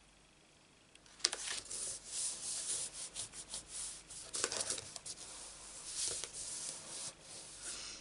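Cardstock being handled and slid across a craft mat: irregular papery rubbing and rustling that starts about a second in, with a few sharp ticks.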